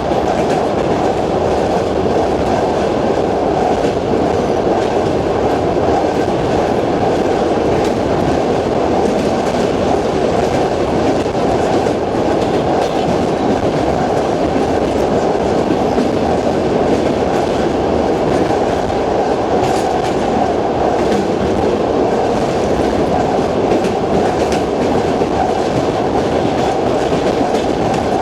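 Long-distance passenger train carriage's wheels clicking over the rail joints of jointed track, under a steady rumbling running noise, heard from inside the carriage.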